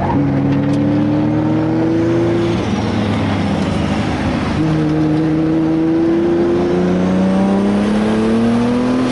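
Nissan Skyline R34 GT-R's 1000 hp, 3.2-litre turbocharged RB straight-six accelerating hard through the gears: three rising pulls in engine pitch, broken by gear changes about two and a half and six and a half seconds in. Heard from inside the cabin.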